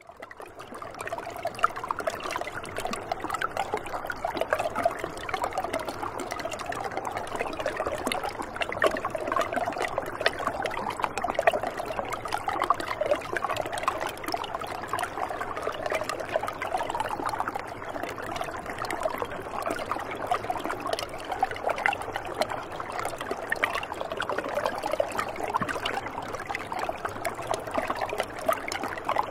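River water running fast and shallow over rocks, recorded close: a steady babbling and gurgling rush with many small splashes. It fades in over the first second.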